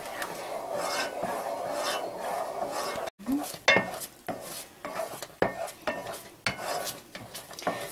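A spoon stirring thickening custard in a pot: a steady scraping rasp for about three seconds, then, after a brief dropout, irregular clicks and knocks of the spoon against the pot.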